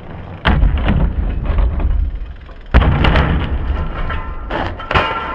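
Loud thuds and clatter of a BMX bike and rider crashing on a kicker ramp, over a low rumble, with the heaviest impact about three seconds in and another sharp knock near the end.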